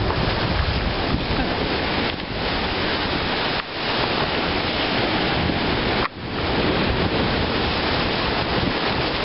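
Ocean surf breaking and washing in the shallows, with wind buffeting the microphone.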